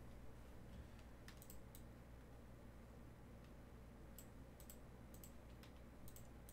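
Faint clicking of a computer mouse: about ten sharp clicks in small clusters, some in quick pairs, over a steady low hum.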